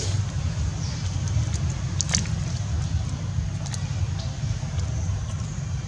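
Steady low outdoor rumble, with a few faint crackling clicks about two seconds in and again later.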